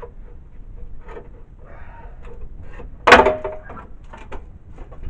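Scattered light knocks and clinks of metal work, then one loud metallic clang about three seconds in that rings briefly.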